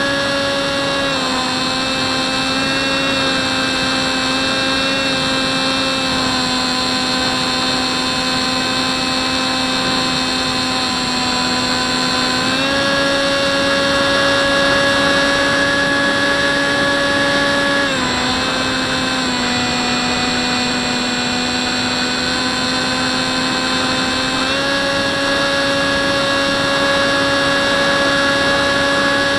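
Hubsan Spyhawk's electric propeller motor whining steadily, heard from the camera mounted on the plane. Its pitch steps down about a second in, up again around halfway, down once more and back up near the end as the throttle is eased and opened.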